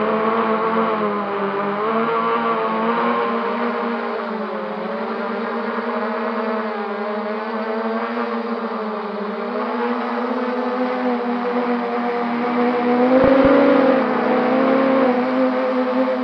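Quadcopter drone's brushless motors and propellers whining steadily, the pitch rising and falling with the throttle, briefly louder with a couple of low thumps near the end.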